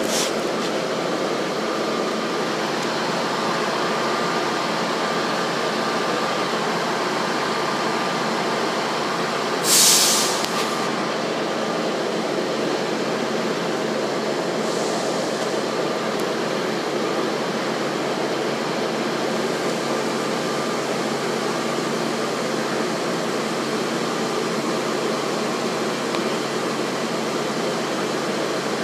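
Class 158 diesel multiple unit standing at the platform, its diesel engines idling with a steady hum. About ten seconds in there is a short, loud hiss of air.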